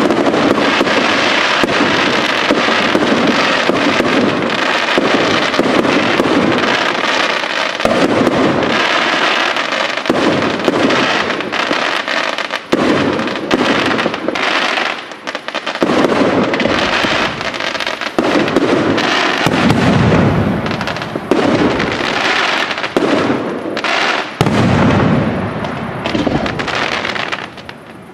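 Fireworks display: a dense, continuous barrage of shell bursts, bangs and crackling, with deeper booms in the second half. The barrage drops away about a second before the end.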